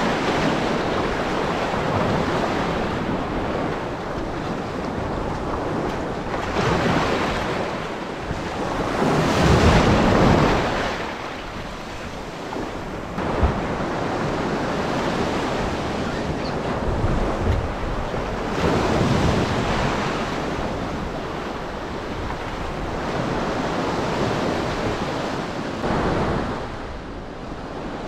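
Sea waves washing and wind on the microphone: a rush of water that swells and fades every few seconds, loudest about ten seconds in, with one brief knock a little after.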